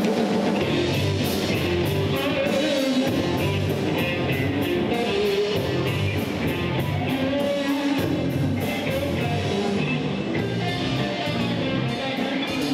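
Live rock band playing: electric guitar and bass guitar over a drum kit, with the cymbals keeping a steady beat.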